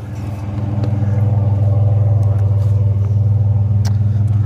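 A vehicle engine running steadily with a low hum, growing louder over the first second or so and then holding even, with a couple of faint clicks.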